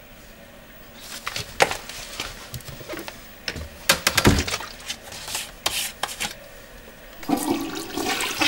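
Handling sounds of a plastic toilet seat and lid: scattered clicks, knocks and rubbing, with a dull thump about four seconds in as the lid is swung up against the cistern. A rushing noise comes near the end as the flush button on the cistern is pressed.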